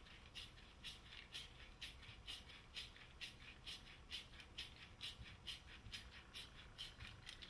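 Tubing cutter being turned around a 1/2-inch copper pipe, its cutting wheel scoring through the pipe with faint clicks about twice a second.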